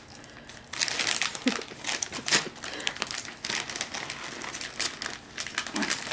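Shiny gift wrapping crinkling and rustling in irregular bursts as a German shepherd mouths and pulls at a wrapped present held out to him. It starts about a second in.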